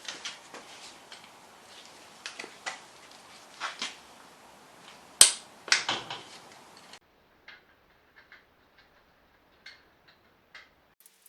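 Metal hand tools clicking and knocking against the engine casing while bolts are worked off, with one sharp, loud click about five seconds in. About seven seconds in, the background hiss cuts out suddenly and only a few faint, sparse ticks remain.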